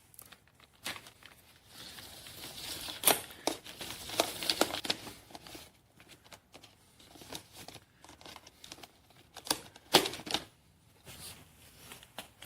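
Irregular clicks and knocks with bursts of rustling, as of things being handled; the sharpest knocks come about three seconds in and about ten seconds in.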